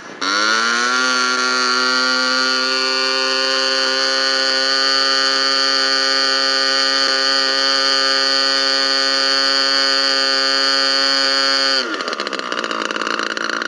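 GMS 120 two-stroke glow engine of a model airplane, turning an APC 16x8 propeller, opens up to full throttle right at the start with its pitch rising, then runs at a steady full-throttle pitch of about 8,000 rpm for a static RPM test. Near the end it is throttled back and the pitch drops to a lower idle.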